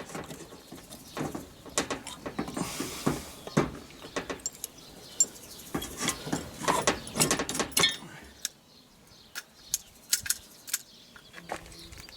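Scattered metal clicks, clinks and knocks of outboard-motor parts and hand tools being handled during a teardown, with a short hiss about three seconds in.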